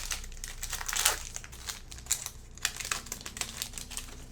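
Plastic trading-card packaging crinkling as it is handled: a run of quick, irregular crackles, loudest about a second in and thinning toward the end.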